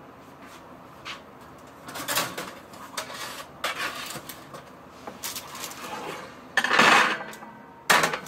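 Kitchen pans and utensils being handled on a counter: a series of clinks and knocks, the loudest two near the end.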